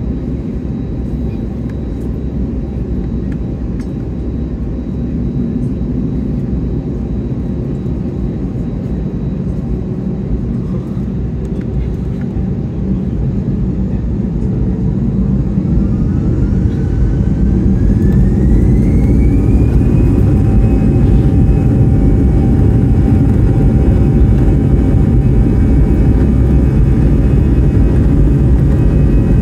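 Airliner's jet engines heard from inside the cabin: a steady low rumble, then about sixteen seconds in a whine rises in pitch and levels off as the engines spool up toward take-off thrust, and the whole sound gets louder.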